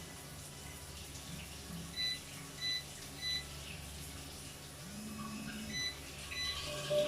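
Short electronic beeps from a water heater's control panel as it is switched on and set: three about a second apart, then two more near the end, over steadily running water.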